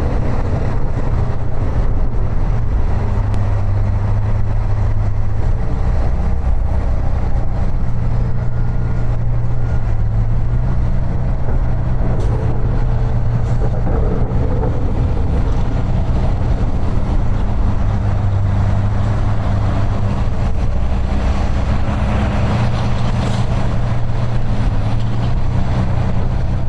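A snow-clearing machine's engine running steadily under load: a constant low hum with a rushing noise over it.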